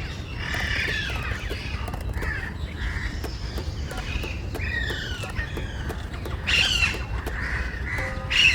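Wild birds squawking and calling harshly, many calls overlapping, with a steady low rumble of wind beneath. The loudest squawks come near the end, where a few held musical tones also begin.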